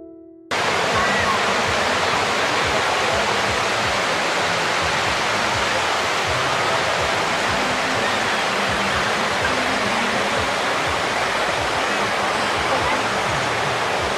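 River water flowing over rocks: a loud, steady rush that starts abruptly about half a second in.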